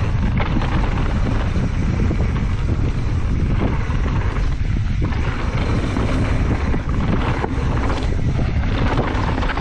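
Wind buffeting a helmet- or bike-mounted action-camera microphone, with the steady rumble of a mountain bike's tyres on rough trail and scattered knocks and rattles, while riding downhill.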